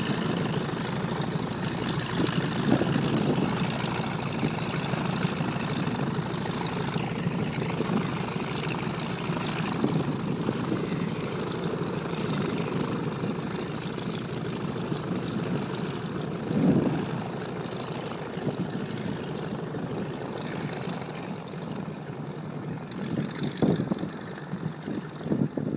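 North American T-6 Texan's nine-cylinder Pratt & Whitney R-1340 radial engine running at low taxi power, the sound slowly fading as the plane rolls away. A brief louder burst comes about two-thirds of the way through.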